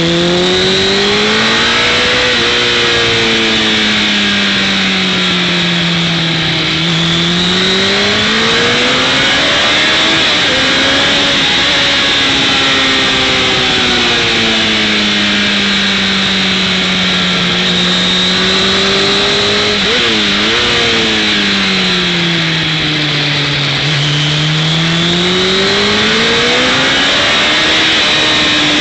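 Motorcycle engine heard from an onboard camera at speed, its pitch rising and falling slowly as the rider accelerates out of and slows into corners, with a quick dip and jump in pitch about twenty seconds in. Steady wind rush over the microphone throughout.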